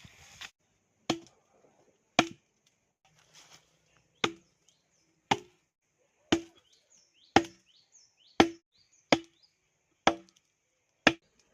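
Chopping strokes of a blade into wood, ten sharp blows at roughly one a second with a short pause near the start.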